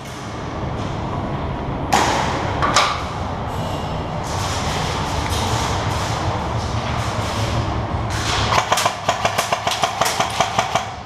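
Steady background rumble, with two sharp thumps about two seconds in. Near the end comes a quick run of about a dozen sharp cracks, roughly five a second: an airsoft electric rifle (AEG) firing rapid semi-automatic shots.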